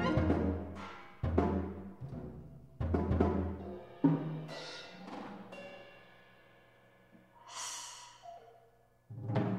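Sparse avant-garde big band music: five low, timpani-like drum strikes spread across the few seconds, each left to ring and die away, with held pitched notes sounding over the middle strikes and a brief hissing, cymbal-like swell near the end.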